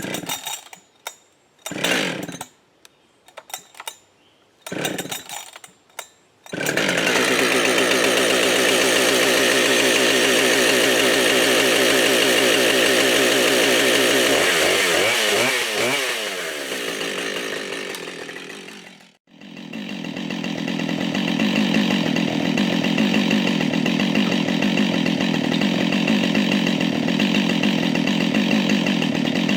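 Husqvarna chainsaw being pull-started after priming, with the decompression valve set: several short pulls on the starter cord, then the engine catches about six seconds in and runs fast and steady. Its speed wavers about halfway through and drops out sharply near two-thirds of the way, then the saw runs steadily again at a lower pitch.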